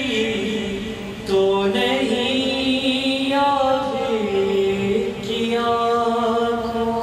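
A man's voice reciting a noha, an Urdu mourning lament, unaccompanied into a microphone, in long drawn-out melodic phrases with brief breaks about a second in and about five seconds in.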